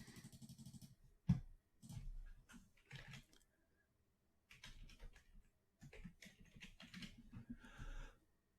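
Faint, scattered clicks and rustling handling noise, with one sharper click about a second in.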